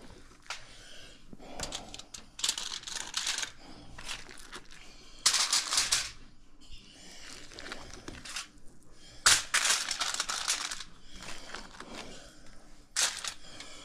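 Plastic cling wrap being peeled off a meat tray, crinkling in several separate bursts.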